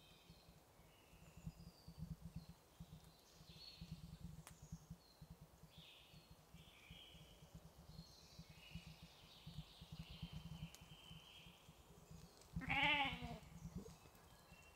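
Wild goat bleating once near the end, a wavering call about a second long. Short high chirps and a low rumble run faintly through the rest.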